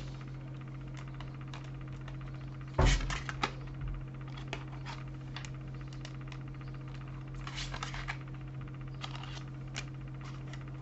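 Tarot cards being handled and laid down on a table: scattered soft taps and slaps, the loudest about three seconds in and a small cluster near eight seconds, over a steady low hum.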